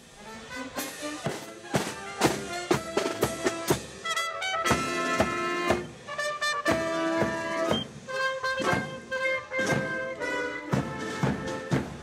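Military marching band playing a march: side drums beating about two strokes a second under held brass chords.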